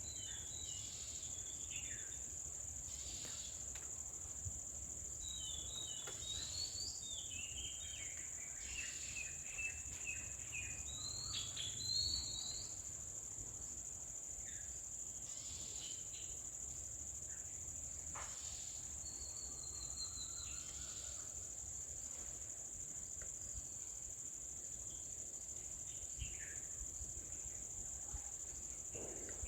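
A steady, high-pitched insect drone runs throughout, with short chirps and twittering calls scattered over it, most of them in the first half and a few more later on.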